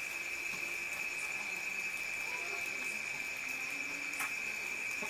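Crickets chirring as one steady, unbroken high trill, over a faint hiss, with a light click about four seconds in.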